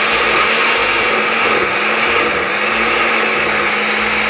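Oster countertop blender with a glass jar running at steady speed, puréeing soaked dried chiles, garlic and onion in water and oil into a red sauce. The motor's pitch dips briefly about two seconds in.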